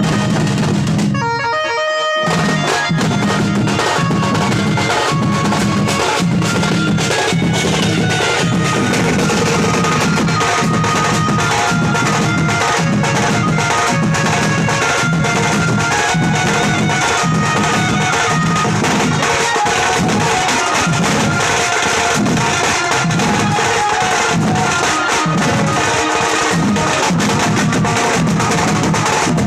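A band party playing loud, fast music: steady, heavy drumming under a sustained melody line. The drums come in about two seconds in, after a short break.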